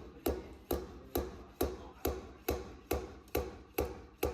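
Slide hammer on a glued pulling tab, striking repeatedly at an even pace of about two knocks a second to pull the dented quarter-panel metal out.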